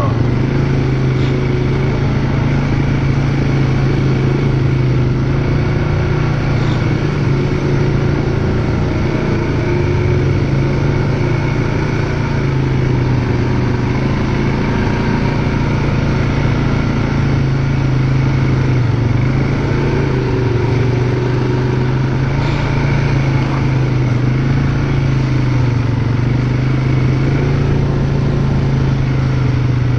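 ATV engine running steadily at low, even speed for the whole stretch, its pitch wavering only slightly, over a constant noise of the moving machine.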